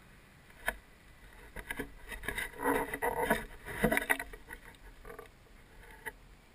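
Shallow water splashing and sloshing in a run of irregular bursts, loudest in the middle, as a fish is handled and dipped at the water's edge, after a single sharp tap about half a second in.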